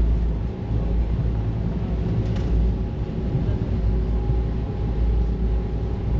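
Steady low engine rumble, with a faint steady hum above it.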